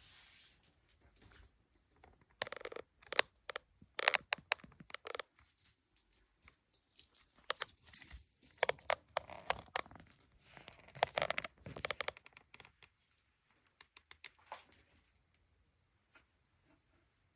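Plastic or paper packaging being crinkled and torn in irregular bursts, as in unwrapping a product.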